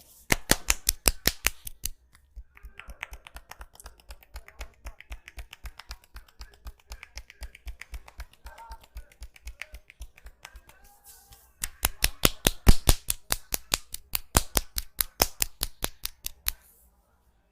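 A barber's hands striking rapidly and rhythmically in percussive head and neck massage, several slaps a second. Loud runs of strikes at the start and again in the last third, with softer, lighter tapping in between.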